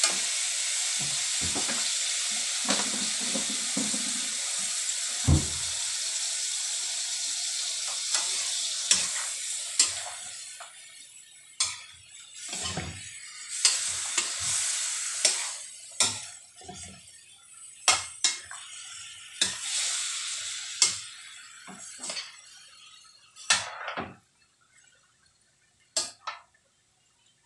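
Pork belly frying and sizzling in a wok while a metal spatula stirs it, scraping and clacking against the pan. The sizzle fades about ten seconds in, and the spatula strokes carry on.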